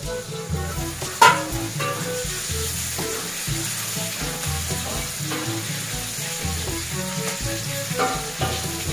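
Red chilies sizzling as they fry in hot oil in a wok, stirred with a spatula. There is a sharp metal clank about a second in.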